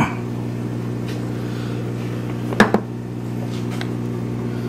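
Steady low hum of running aquarium pump equipment, with two quick knocks about two and a half seconds in.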